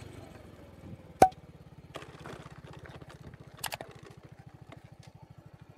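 Small single-cylinder motorcycle engine, a Honda Pop 100, idling with an even, fast low putter. A single sharp click about a second in is the loudest sound, with a few faint knocks later.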